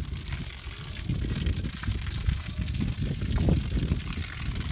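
Water jetting from a hose and splashing onto a freshly poured concrete roof slab, a steady rush and spatter, wetting the concrete to cure it.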